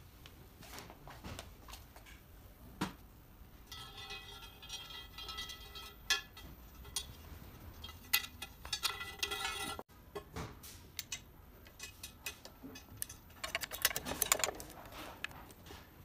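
Metal parts of a floor-standing tablet kiosk being handled and fitted together: scattered clicks and knocks of the curved metal pole against the round metal base plate. A stretch of pitched scraping runs from about four to ten seconds, and a quick cluster of rattling clicks comes near the end.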